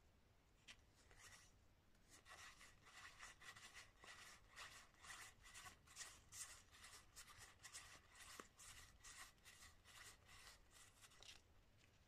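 Faint, quick rustles and flicks of stiff game cards sliding against each other as a deck is thumbed through one card at a time, starting about two seconds in and stopping shortly before the end.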